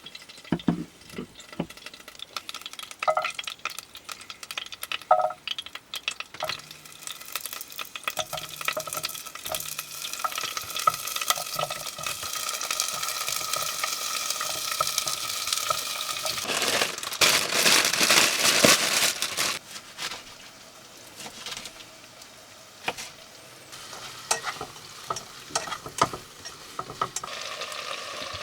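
Food sizzling in a frying pan, with scattered clicks and scrapes of a utensil stirring or turning it. The sizzle builds and is loudest for a couple of seconds about seventeen seconds in, then dies back to a quieter hiss.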